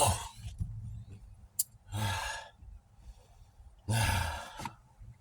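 A man sighing heavily three times, about two seconds apart, with a short click between the first two.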